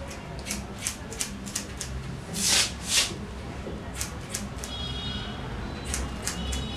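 Hairdressing scissors snipping through very thick hair in an irregular run of short, sharp cuts. The two loudest, longer cuts come about two and a half and three seconds in. A steady low hum lies underneath.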